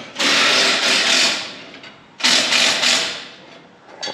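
Starter cranking an old Ford truck's engine in two bursts of about a second each, the engine not catching: the truck is broken down.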